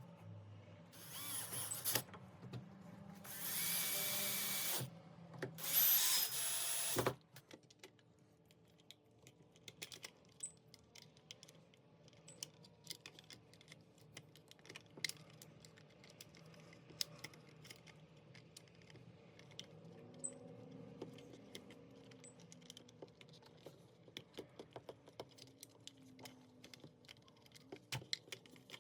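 Power drill-driver running in three short bursts over the first seven seconds, driving in screws. After that, only faint scattered clicks and taps of parts being handled.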